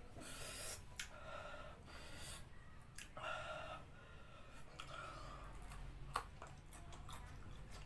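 Faint, sharp breaths hissed out through the mouth by a man feeling the burn of raw red chili peppers, twice in the first few seconds, then a single click about six seconds in as he bites into another chili.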